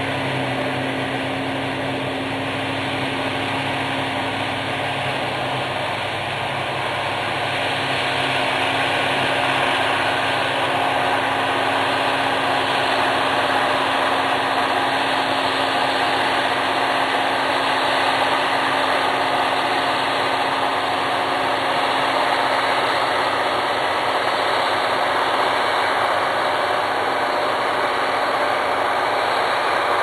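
An engine running steadily with machinery noise. About seven seconds in, the low hum fades and a broad rushing mechanical whir grows louder, then holds steady.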